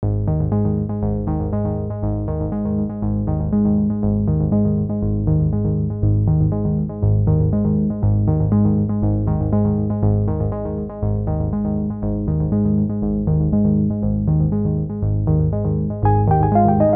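Background music: a synthesizer and keyboard track with a steady, evenly repeating pulse, its melody changing about sixteen seconds in.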